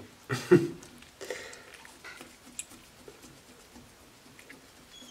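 Knife and hands working a pike fillet on a cutting board: light ticks, taps and scraping of handling. Two louder short breathy noises come about half a second and just over a second in.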